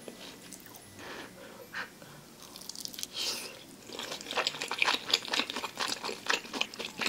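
Close-up chewing of a chewy-skinned dumpling (mandu): wet mouth clicks, sparse at first, then coming thick and louder from about halfway through.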